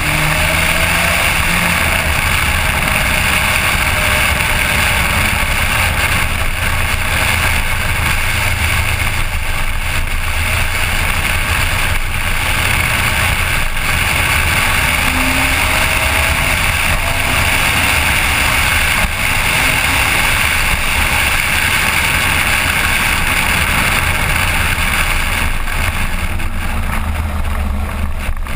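Suzuki GSX1400 motorcycle under way, its inline-four engine running beneath a loud, steady rushing noise on the GoPro's microphone. The engine pitch rises and falls slightly a couple of times.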